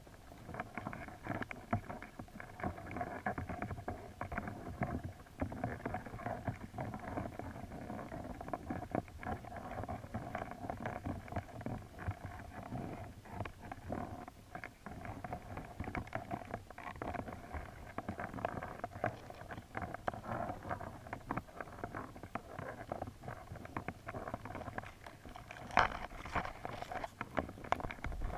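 Muffled underwater ambience picked up by a submerged camera, with frequent small clicks and a sharper knock about two seconds before the end.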